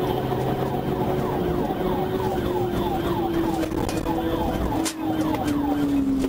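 Police siren from the pursuing patrol car, heard from inside the car. It is yelping in quick falling sweeps, about four a second, over a steady lower tone that slowly drops in pitch.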